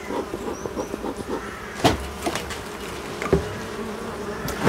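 Honeybees buzzing steadily at a hive that has just been smoked to calm them, with three sharp knocks, the loudest about two seconds in.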